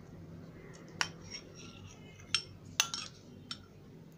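Steel spoon clinking lightly against a ceramic bowl, several separate clinks with a short ring.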